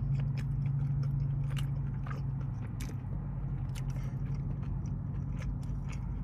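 A person chewing a mouthful of boneless chicken wing, with scattered short wet clicks, over a steady low hum.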